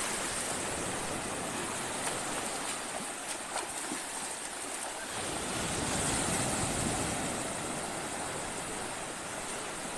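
Small waves breaking and washing up over shallow water: a steady rush of foaming surf that swells louder about halfway through.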